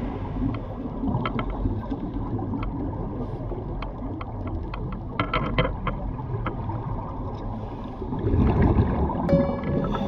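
Underwater ambience: a steady low rumbling wash with scattered faint clicks, then a louder gurgling rush of scuba exhaust bubbles about eight seconds in.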